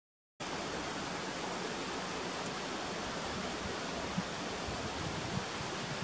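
Steady rush of a fast mountain stream, an even hiss of water with no change in level, after a brief gap of silence at the very start.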